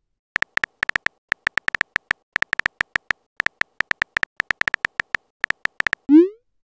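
Phone keyboard typing sound effect: quick irregular runs of short, high tonal clicks, one per key press. Near the end comes a brief rising swoop, the message-sent sound.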